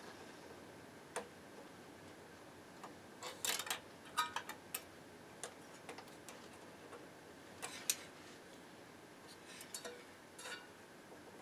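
Multimeter test probe tips clicking and scraping against parts on a receiver's amplifier circuit board: scattered light ticks, some in quick little clusters, over a faint steady hiss.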